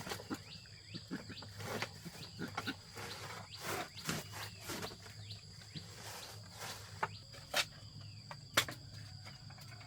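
Scattered light clicks and knocks, irregular and short, over a steady high-pitched insect buzz.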